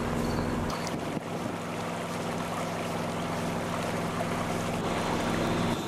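Trimaran's engine running steadily as she moves along the river, with water rushing past the hulls and wind on the microphone. The hum briefly thins about a second in, then carries on.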